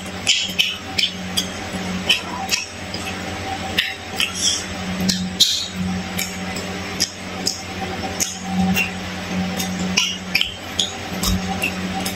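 Close-miked eating sounds: chewing and wet mouth smacks with frequent short, irregular clicks as crispy fried fish is picked apart with the fingers and eaten. A steady low hum runs underneath.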